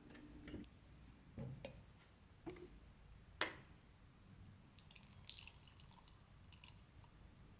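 Quiet kitchen handling while a sourdough levain is being fed: a few light knocks and one sharp click, then a brief light scraping.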